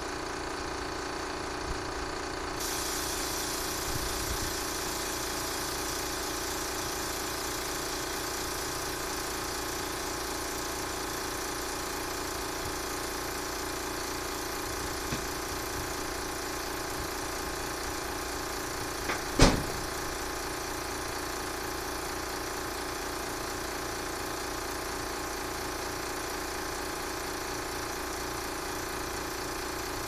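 Electric fan running close to the microphone, a steady mechanical hum, with one sharp knock about two-thirds of the way through.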